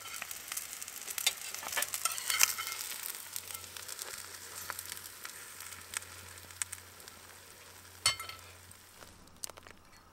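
Hot fat sizzling and spitting in a frying pan on a small wood-burning stove, crackling most densely in the first few seconds and then dying down, with one sharp clack about eight seconds in.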